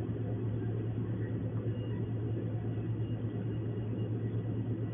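A steady low hum with a faint even hiss: background room noise with no distinct event.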